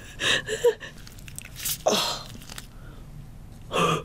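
A woman's short breathy gasps and exclamations of disgust, three of them, the loudest about halfway through.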